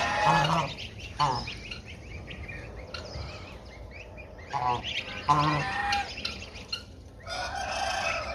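White domestic geese honking a few times in short bursts, with the thin high peeping of their goslings running underneath, and a longer noisy rasp near the end.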